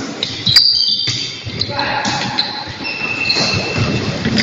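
Volleyball game in an echoing sports hall: a sharp ball strike about half a second in, then players' indistinct voices and high squeaks.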